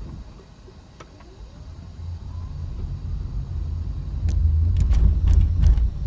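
Car pulling away from a level crossing and driving over the railway tracks, heard from inside the cabin: a low engine and road rumble that builds up, with a quick series of knocks and rattles near the end as the tyres go over the rails.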